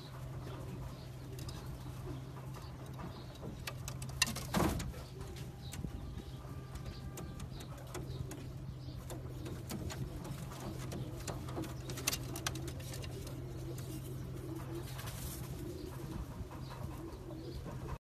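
Domestic racing pigeons cooing over a steady low hum, with a few sharp knocks, the loudest about four and a half seconds in.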